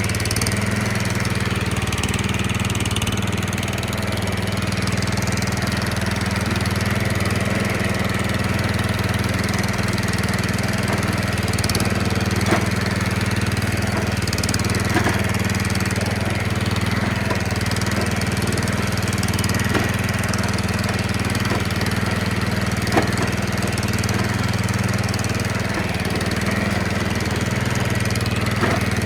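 Greenfield Evolution 3 ride-on mower's petrol engine running steadily, with a few faint clicks, on a test run after its broken V idler pulley was replaced.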